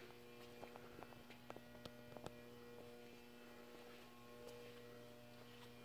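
Near silence with a steady low electrical mains hum and a few faint clicks in the first couple of seconds.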